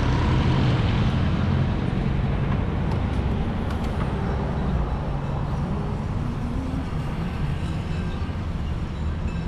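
Steady low rumble of a motor vehicle engine running, easing off slightly in loudness.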